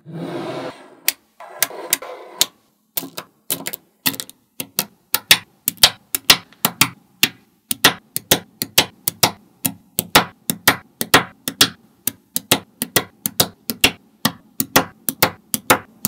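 Small magnetic balls clicking sharply as columns of balls are snapped onto a wall of balls, a quick run of clicks about three a second. A short scraping rattle of balls shifting comes at the very start.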